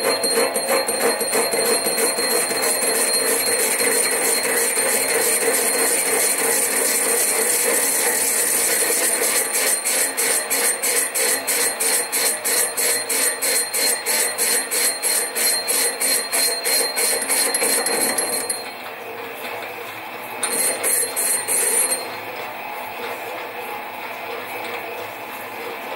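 Sieg SC4 lathe turning a cast-iron flywheel under power feed: a steady high whine with cutting noise, joined about ten seconds in by a rapid even ticking, about four a second. About eighteen seconds in the whine and ticking cut off, come back for a moment, then stop, leaving the lathe running more quietly.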